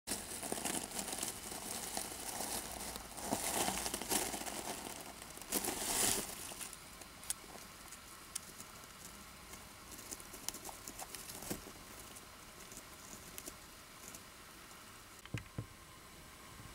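Wood-shaving bedding rustling and crackling as a hand and a Djungarian hamster move through it, loudest for the first six seconds or so. After that it turns quieter, with scattered small clicks and ticks as the hamster handles and nibbles a seed.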